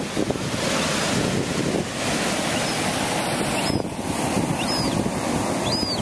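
Surf breaking and washing against the cliff below, with wind buffeting the microphone. In the second half a juvenile gull gives about three faint, high, thin begging peeps, each rising and falling.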